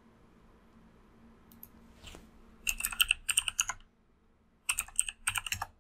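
Computer keyboard typing in two quick runs of keystrokes, the first about two and a half seconds in and the second near the end, with a short pause between: a username and then a password being entered.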